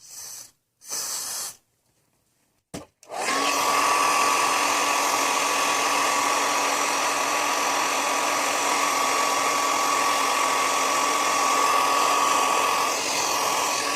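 Two short hisses of an aerosol spray, then a click and a hair dryer starting up and running steadily with a constant whine, blowing on the freshly sprayed wig lace to set it.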